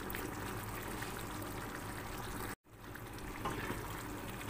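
Cornflour-thickened sauce simmering and bubbling with vegetables in a frying pan. It breaks off for a moment just past halfway, then goes on with a few faint knocks as a wooden spatula begins stirring.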